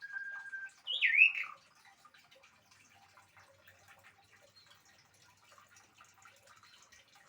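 Pied starling (jalak suren) calling: a short steady whistled note, then about a second in one loud squawking call that swoops up and down in pitch. After that only faint small ticks and rustles.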